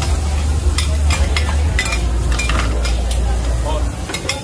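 Metal spatulas scraping and clacking on a large flat black griddle pan while green-mussel pancakes (hoi tod) fry and sizzle in oil. A low hum runs underneath and stops near the end.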